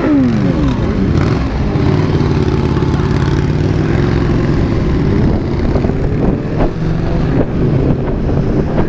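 Motorcycle engine running at a steady, even speed under way, with wind noise over the microphone.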